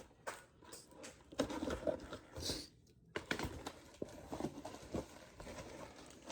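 Light rustling and scattered clicks of packaging being handled as a fishing rod is taken out of its wrapping, with a brief pause in the middle.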